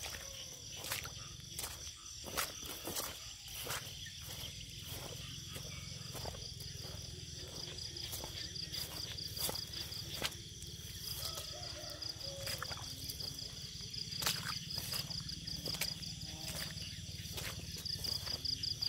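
Night chorus of insects and frogs in wet fields: a high, fast-pulsing trill that swells and fades, over a steady low background rumble, with scattered sharp clicks and knocks.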